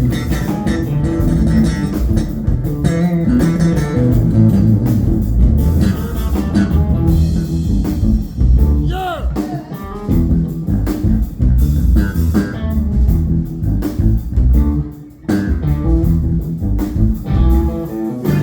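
Live funk-rock band playing an instrumental passage on electric guitar, bass guitar and drum kit. A guitar note bends about nine seconds in, and the band drops out briefly for a short break about fifteen seconds in before coming back.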